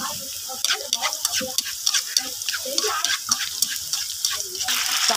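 Chopped garlic frying in hot oil in a pan, crackling and spattering as it is stirred. Near the end a louder, steady sizzle starts suddenly as the frog pieces go into the hot oil.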